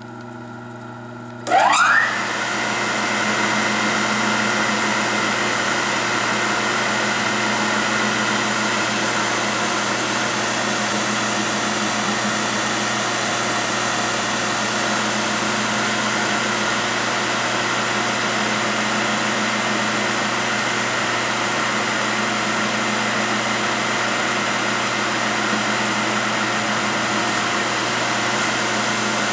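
Enco X6320A milling machine's spindle motor switched on: a rising whine as it spins up about a second and a half in, then running steadily with a steady whine.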